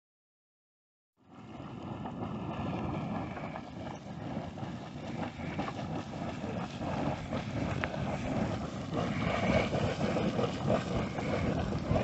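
Pump Geyser's hot-spring pool boiling and churning, a steady rushing rumble with small splashes and crackles, starting about a second in.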